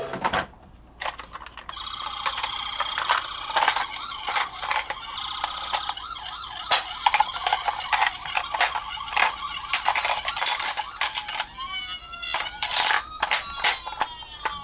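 Toy minicars clicking and clattering in many quick, sharp knocks. Near the end a siren wails, rising and falling.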